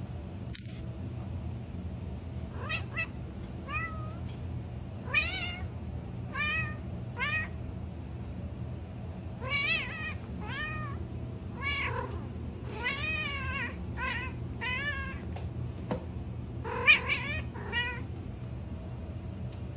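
Domestic cat giving a string of short meows, about fifteen in all, each rising and falling in pitch, with pauses between them, over a steady low hum.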